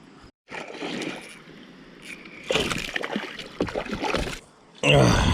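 Water sloshing and irregular handling noises in a kayak while a hooked fish is being freed. A short man's grunt near the end is the loudest sound.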